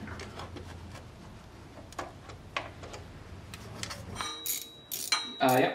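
Light ticks, then a quick run of sharp metal clinks and clatter from hand tools and engine hardware being handled during reassembly. There is a faint low hum that stops about four seconds in.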